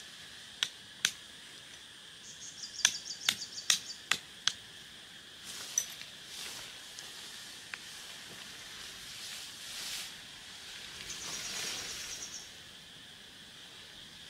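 A string of sharp clicks and knocks, most of them bunched together about three to four seconds in, over a steady high outdoor background, with a short rapid high trill twice.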